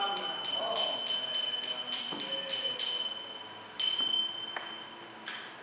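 Small metal bells jingling in an even rhythm of about three shakes a second with a ringing tone, thinning out after a few seconds, then two louder single bell strikes near the end.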